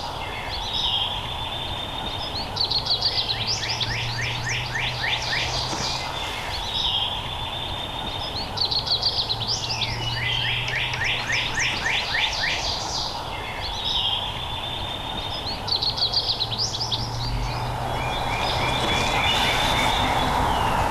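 A songbird singing a rapid, high trill of about two seconds, repeated roughly every six seconds, over steady outdoor background noise that rises near the end.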